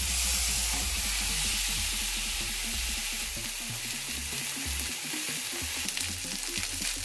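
Salmon fillets frying in oil on a stovetop grill pan, a steady sizzle with a few light crackles near the end.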